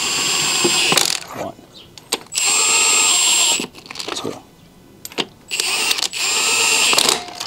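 Cordless impact wrench running lug nuts down onto a truck's wheel studs, snugging them up but not torquing them. It runs in three bursts of about a second or more each, with short blips between.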